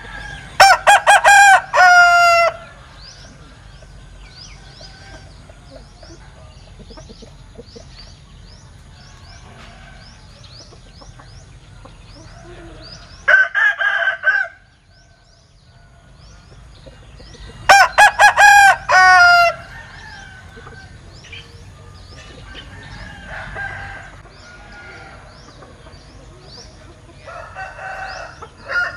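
Linh kê rooster crowing its unusual broken crow twice: a quick run of short choppy notes ending in a longer falling note, once about a second in and again past the middle. Between and near the end come shorter, fainter crows and calls, with small birds chirping throughout.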